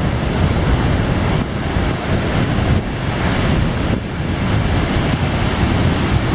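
Ocean surf washing onto the beach, a steady hiss that swells and ebbs, with wind buffeting the microphone.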